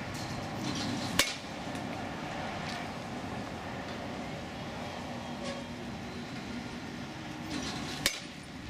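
Baseball bat hitting pitched balls: two sharp cracks, one about a second in and one near the end, about seven seconds apart.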